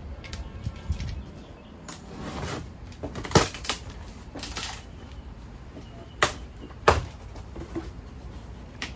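Cardboard box being opened: a key scratches through the packing tape, then the flaps are torn and pulled open, with sharp snaps of tape and cardboard about three and a half seconds in and twice more after six seconds.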